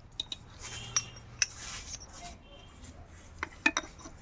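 Light metal clinks and taps of motorcycle engine parts being handled while a cylinder block and piston are fitted, with a cluster of sharper clicks near the end.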